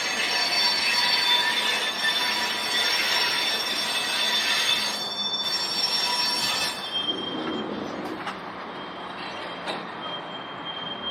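Freight wagons rolling through a hump yard, their steel wheels squealing in several high steady tones at once. The squeal cuts off sharply about two-thirds of the way in, leaving a fainter single high tone and a couple of light knocks.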